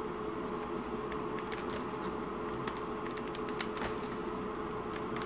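Light, irregular clicks and scrapes of a metal teaspoon prying at a tight speedometer needle on an instrument cluster, over a steady low hum.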